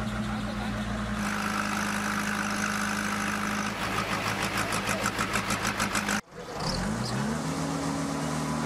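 JCB backhoe loader's diesel engine running as it works its arm. A high whine rides over the engine for a few seconds, then comes a pulsing beat. Past halfway the sound cuts off abruptly, and an engine then revs up in pitch and holds steady.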